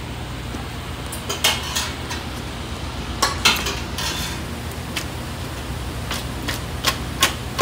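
Stainless steel pan clinking and scraping as spaghetti is tossed and swirled in it over a gas burner, with scattered sharp metallic clinks over a steady low hum.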